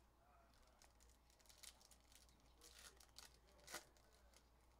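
Faint crinkling and tearing of trading-card pack wrappers as packs are handled and opened, a few short scratchy crackles with the sharpest one late on.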